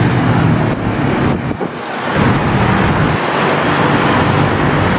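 Road traffic close by: cars and motorcycles running past along a busy street. It dips briefly about a second and a half in.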